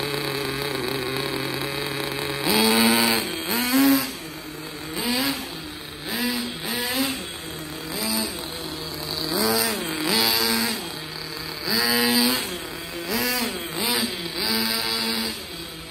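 Kyosho ZR1 radio-controlled car's motor holding a steady note at first, then revving up and back down in repeated bursts, about one a second, as the car is driven and slid around.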